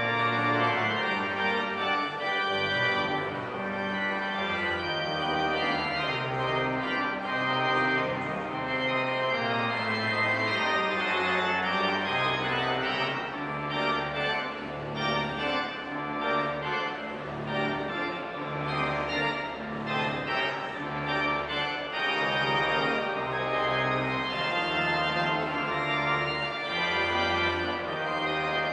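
Organ playing slow sustained chords over a bass line that moves from note to note every second or two.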